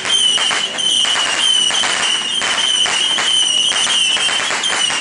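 Fireworks crackling and popping in a dense, irregular patter, over a steady high-pitched tone.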